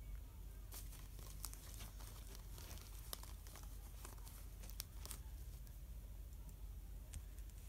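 A deck of tarot cards being picked up and handled: faint papery rustling with scattered light clicks of card against card, thickest through the middle and thinning out near the end.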